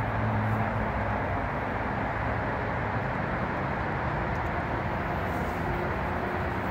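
Steady outdoor rumble and hiss with no sudden events, a low hum fading out about a second in.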